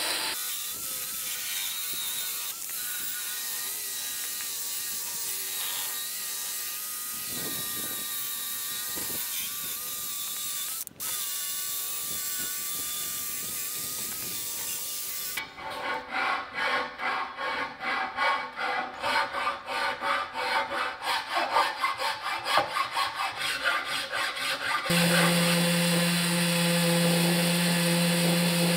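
Cordless angle grinder with a wire cup brush running as it strips old paint from a cast-iron drill press table. About halfway through it gives way to a file scraping metal in quick, regular strokes. Near the end an orbital sander starts with a steady hum.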